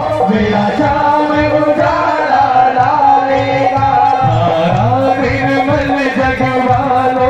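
Live Hindi devotional kirtan music: a singer holding long, wavering notes over a steady drum rhythm and instrumental accompaniment.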